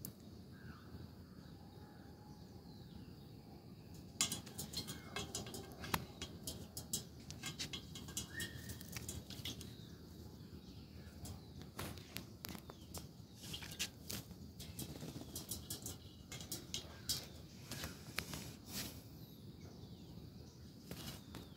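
A parrot bathing, flapping and fluttering its wet wings in water in irregular bursts that start about four seconds in, with a couple of short chirps.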